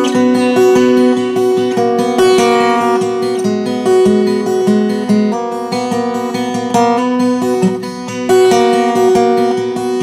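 Background music: acoustic guitar playing a melody of plucked and strummed notes.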